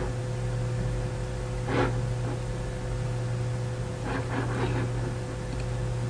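Steady electrical hum over a hiss, the background noise of the narration microphone. A faint, brief sound comes about two seconds in, and faint traces come again around four to five seconds.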